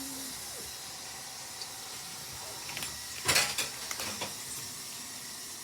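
A cat eating from a bowl: a short cluster of crunching clicks a little over three seconds in, over a steady hiss.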